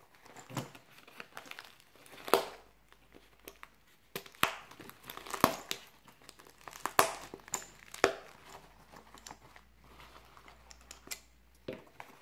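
Nylon fabric of a tactical MOLLE pouch rustling and scraping as it is turned over and its straps are pulled, with several sharp snaps and rips among the rustle.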